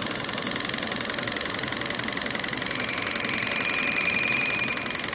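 Milling machine spindle running a boring head in facing mode, with a rapid, even mechanical clatter from the head's feed while the tool faces off a bronze bush. A thin high whine comes in about halfway and fades near the end.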